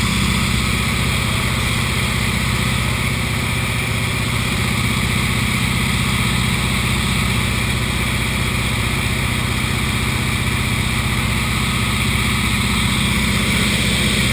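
Single-engine floatplane's piston engine and propeller droning steadily, heard from inside the cabin, with a haze of airflow noise over it.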